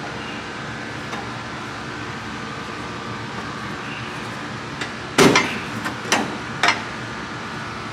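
Three sharp metal knocks, the first and loudest about five seconds in with a short ring, the next two about a second and a second and a half later. Underneath is a steady background hum.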